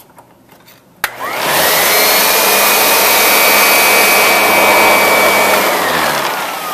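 Sanitaire upright vacuum with a beater-bar roller switched on with a click about a second in; its motor whines up to speed and runs loud and steady, then winds down with a falling whine near the end.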